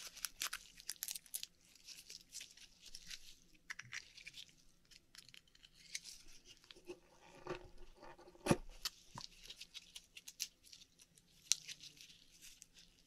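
An Akoya oyster being shucked by hand and picked through for pearls. A run of small clicks and crackles of shell and flesh, with one sharper click about eight and a half seconds in.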